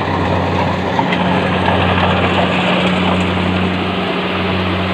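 Kubota DC-70 Plus combine harvester running: the steady drone of its diesel engine under a dense, even mechanical rush.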